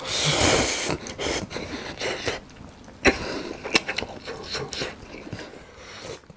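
Close-miked eating of Shin Ramyun stir-fried instant noodles: a long noisy slurp of noodles in the first second, then wet chewing with sharp clicks and smacks.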